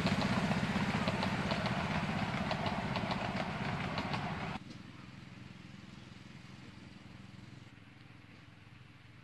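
A small engine running steadily with a fast, even beat and slowly fading. It cuts off abruptly about four and a half seconds in, leaving faint background noise.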